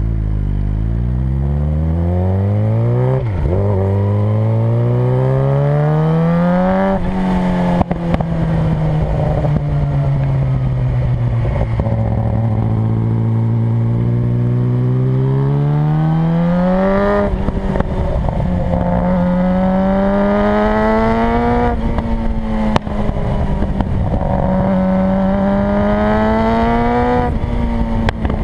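Suzuki GSX-R600 inline-four engine through a short aftermarket exhaust under way, revving up and shifting up several times, its pitch climbing and dropping sharply at each shift, with a long easing-off and slowing in the middle. Two sharp cracks come through, backfire pops from the short pipe, over a rush of wind on the microphone.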